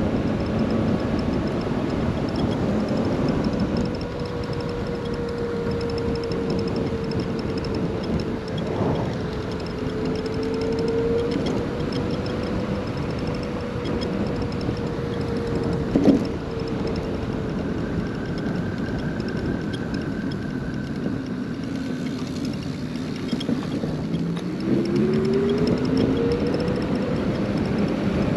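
Huck Cycles Stinger 3000 electric moped's motor whining steadily under wind and road noise while riding. A couple of brief knocks come midway, and the whine climbs in pitch near the end as the bike speeds up.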